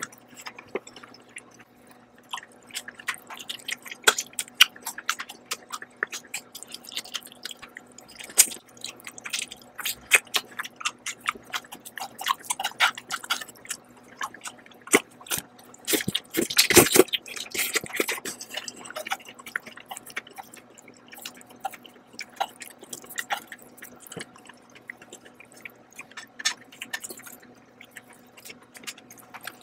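Close-miked wet chewing and mouth clicks of someone eating noodles, with a louder, longer slurp of noodles a little past halfway through.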